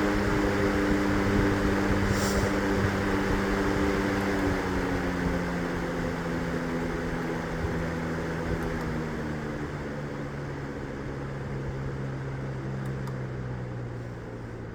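Vornado Model 80 box fan running, its motor-and-blade hum and air rush gliding slowly down in pitch and getting quieter as the fan slows from high speed.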